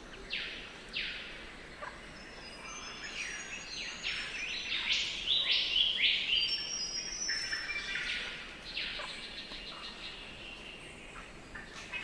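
Spangled drongo song: harsh, steeply falling notes, a few at first, then a fast, dense run of them in the middle, in the bird's mechanical jangling style, with high thin notes mixed in.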